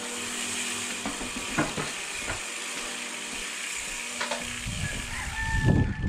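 Trials bicycle ridden out of a garage onto a driveway: a steady hiss with a few sharp clicks and knocks, then a low rumble of rolling and wind from about four and a half seconds in. A brief high squeal comes just before the end.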